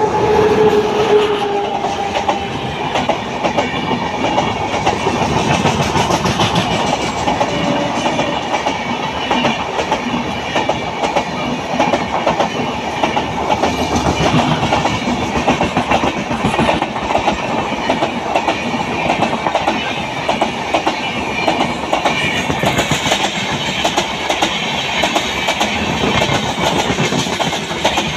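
Indian Railways express train of LHB coaches, hauled by a WAP-7 electric locomotive, passing close by at speed, its wheels clattering steadily over the rails as the coaches rush past. A horn sounds briefly at the very start.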